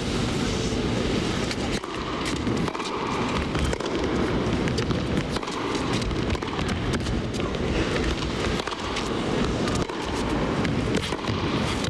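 Tennis rally: rackets striking the ball back and forth, with sharp hits recurring through a steady rumble of arena crowd noise.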